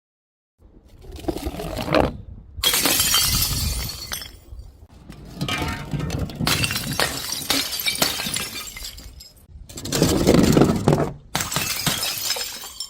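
Glass bottles breaking and shattering with crunching and clinking of glass, in about five separate stretches that start and stop abruptly.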